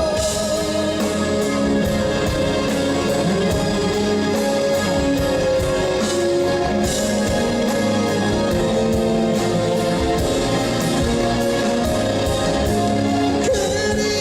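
Live rock band playing an instrumental break in a pop-rock ballad: sustained guitar chords over an even drum beat with cymbals, with no singing.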